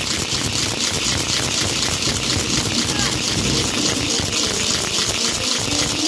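Steady, loud crowd hubbub of many voices echoing in an indoor sports hall.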